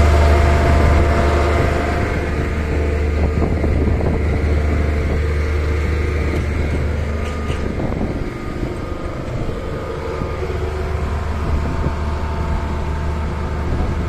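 Hydraulic static pile driver's power unit running with a steady deep hum. The hum cuts off abruptly about eight seconds in, leaving a quieter, rougher rumble of machinery.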